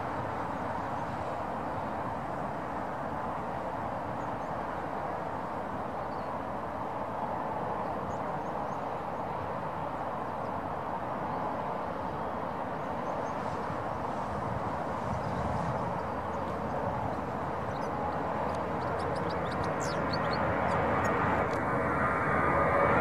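Airbus A340-300 jet engines at takeoff thrust: a steady jet noise that grows louder over the last several seconds as the airliner rolls down the runway and lifts off.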